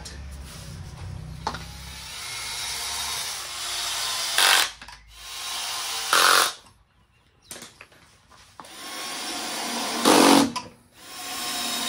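Power drill driving wood screws, four in turn. Each run gets steadily louder and ends in a short loud burst as the screw seats.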